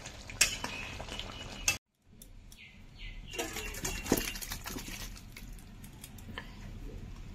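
A few faint clinks of a metal cooking pot being handled, then low background noise with a few short, high bird chirps.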